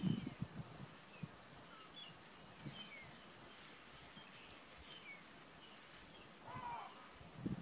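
Faint low sloshing and thuds of elephants shifting in a mud wallow, once at the start and again near the end, with small birds giving short chirps throughout and one arched call shortly before the end.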